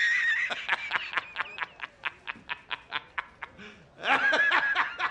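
A man laughing hard: a quick, even run of short 'ha' pulses, about six a second, breaking into a longer, higher laugh about four seconds in.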